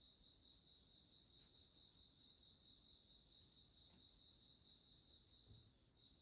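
Faint chirping of crickets: a steady, high, pulsing trill. A soft low thump comes near the end.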